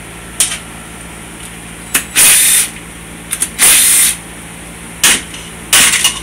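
DeWalt cordless impact driver spinning out bolts on a Honda BYBA automatic transmission case, in a series of short hammering bursts. The longest bursts last about half a second.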